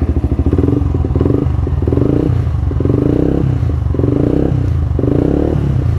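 Yamaha R15 v2's single-cylinder four-stroke engine running at a fast, even beat, with five short louder surges, about one a second.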